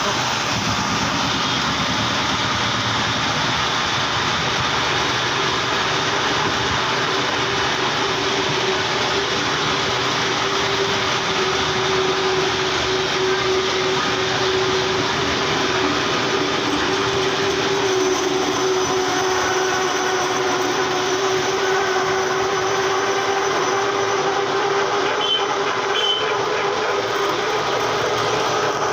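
Metal lathe running steadily, with a continuous machine noise and a steady hum.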